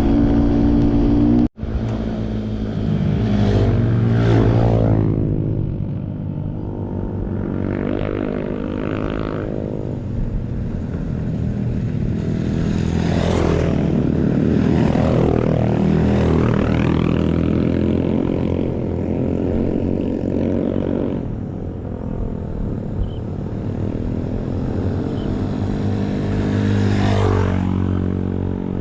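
Trail motorcycle engines running and revving, their pitch rising and falling again and again as the bikes ride, with a brief break in the sound about a second and a half in.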